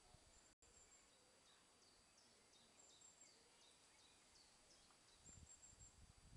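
Near silence: faint garden ambience with quiet, repeated short high chirps from small birds, and soft low rustling near the end.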